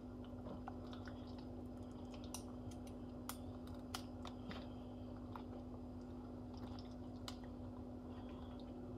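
Kitchen scissors snipping and working at the string tied around a rotisserie chicken: a few faint clicks and snips, scattered and irregular, over a steady low hum.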